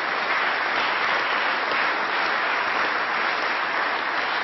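Members of parliament in the chamber applauding together, a dense and steady round of clapping.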